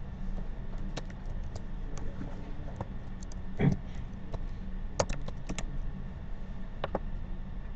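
Computer keyboard typing: scattered keystrokes as a short word is typed, over a low steady hum. A dull thump about three and a half seconds in is the loudest sound.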